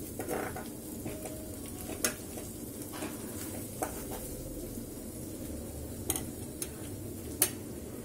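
Metal ladle stirring and scooping rasam in an aluminium pot, with a few sharp clinks of the ladle against the pot.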